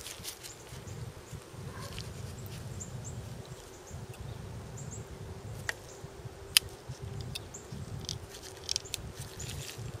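Two sharp clicks about six seconds in, the second one louder, as a crimped female spade terminal is pushed onto a sealed lead-acid battery's tab terminal. Under them runs a steady low outdoor rumble with faint scattered high chirps.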